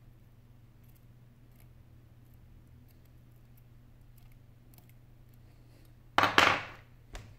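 Steel tweezers set down with a short metallic clatter about six seconds in, followed by a smaller click a second later. Before that there are only faint small ticks of the tweezers working a connector inside the phone.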